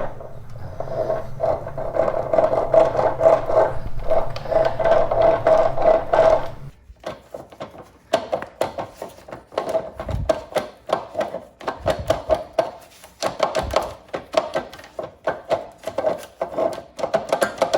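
Rear wheel of a 1951 Vincent Rapide turned by hand while its loose rear sprocket is held, giving a grating, rattling run of rapid clicks with a ringing note. About seven seconds in it slows to separate clicks a few times a second. The sound is the sprocket moving against the rear drum, no longer held fast by its nuts and bolts.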